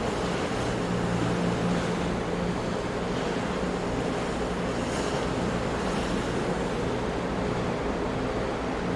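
Big ocean waves crashing and washing in a continuous rush of surf, swelling slightly about a second and a half in.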